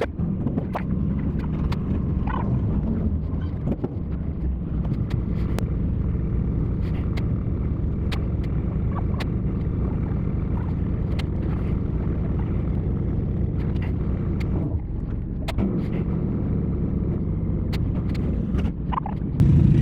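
Car engine running with a steady low rumble, with scattered light clicks and a brief lull about three quarters of the way through.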